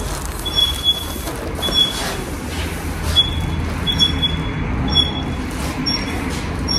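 Aluminium foil sheets crinkling and rustling as they are handled over insulation boards, over a steady low machinery hum. Short high-pitched squeaks come at irregular intervals throughout.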